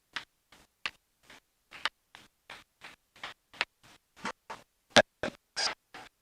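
A steady train of short clicks, about three or four a second, with dead silence between them; one louder click about five seconds in.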